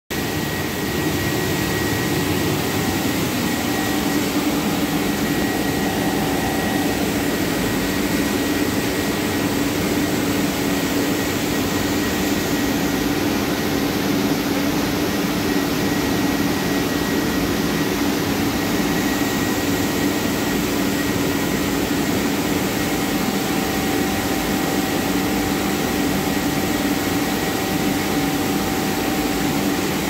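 IFB industrial dishwasher running: a steady rushing noise over a constant low hum, with a faint high whine, unchanging throughout.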